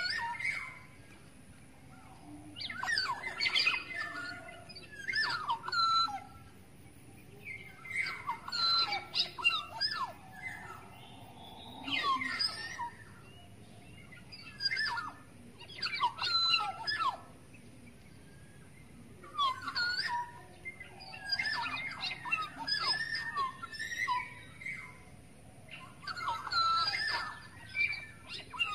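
Black-naped oriole (kepodang) calling: quick phrases of fluty whistles mixed with harsher notes, coming in short bursts every two to three seconds, the kind of call used as a bird-trapping lure.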